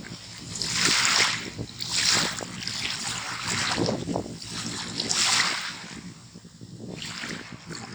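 Small waves breaking and washing onto a sea shore in the wind, in surges every second or so that die down near the end.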